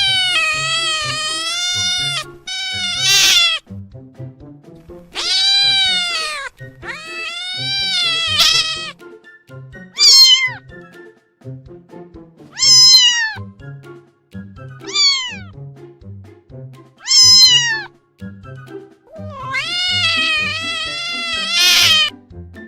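Domestic cat meowing about nine times: long drawn-out meows that rise and then fall in pitch, and shorter high meows that drop sharply, over soft background music.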